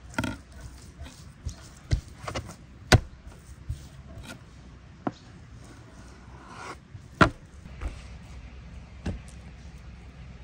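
Kitchen knife slicing raw beef on a wooden cutting board: sharp knocks and taps of the blade and meat against the board, about ten in all, the loudest about three and seven seconds in, with a brief scrape of the blade in between.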